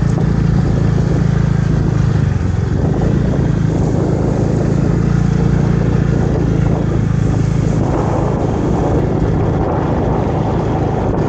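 A motor vehicle's engine running steadily at an even pitch, with a rushing noise that grows louder about eight seconds in.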